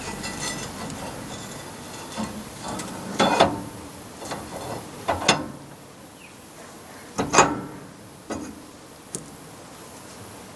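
Hand tools and metal parts clanking and knocking, about five sharp hits a second or two apart, the loudest two about three and seven seconds in, during work refitting a rear driveshaft (tail shaft).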